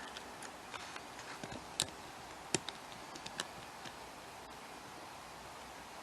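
Small, sharp metal clicks and ticks of a pin-tumbler lock and tools being handled while the plug is worked out for disassembly: about a dozen irregular clicks over the first four seconds, two of them louder.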